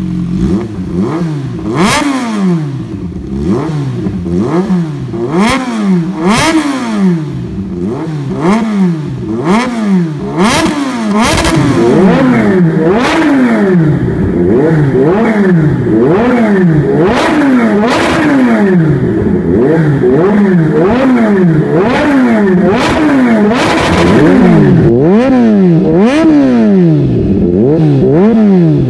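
Kawasaki Z H2's supercharged inline-four revved repeatedly at a standstill through a GP Moto slip-on exhaust. The pitch climbs and falls about once a second, with frequent sharp cracks from the exhaust. The revving grows louder and more continuous after about twelve seconds.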